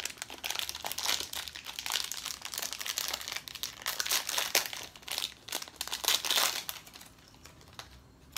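Crinkly gold foil wrapper of a small toy surprise packet being crumpled and torn open by hand: a dense, continuous crackle that dies down about seven seconds in.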